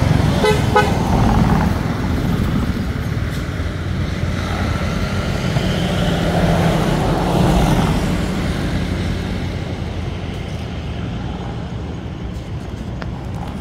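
Steady road traffic rumble of passing motor vehicles, swelling as one goes by about seven seconds in, with a short vehicle horn toot about half a second in.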